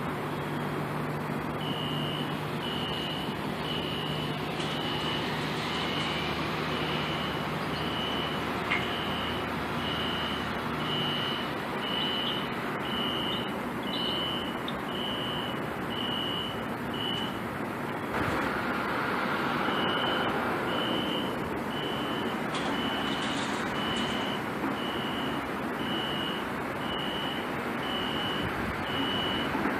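Horn-only fire alarm used as a gate alarm to warn of an approaching car, beeping steadily at one high pitch, about one beep every three-quarters of a second; it pauses for about two seconds near the middle, then resumes. The uploader likens it to a Wheelock NS or Exceder horn.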